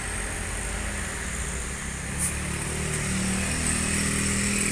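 Heavy tanker truck's engine running steadily at low speed, with a motorcycle engine coming up alongside near the end. A brief sharp click about two seconds in.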